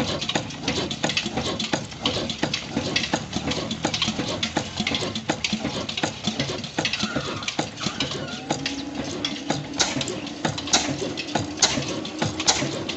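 Old 26 HP single-cylinder desi engine with a large flywheel, clattering with rapid, irregular clicks and knocks; a steady hum comes in about eight seconds in.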